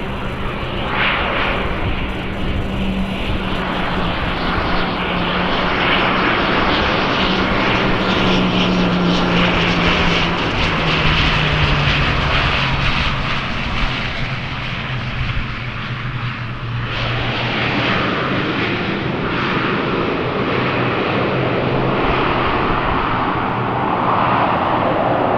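ATR 42-500 twin turboprop arriving. Its propellers and engines drone steadily, with a low tone that slowly falls in pitch.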